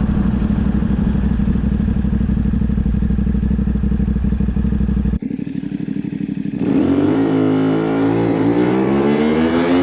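CFMoto 450 parallel-twin engine with a new aftermarket exhaust, running steadily while riding. About five seconds in the sound drops away sharply, then the engine revs hard, its pitch climbing steadily as the bike accelerates.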